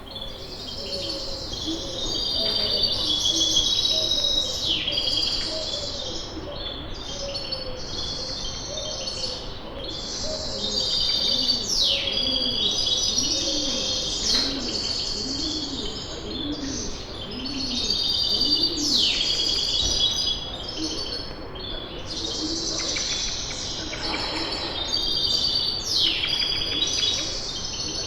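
Many small birds chirping and twittering in a dense, continuous chorus, full of quick falling notes, with lower repeated calls underneath through the first half.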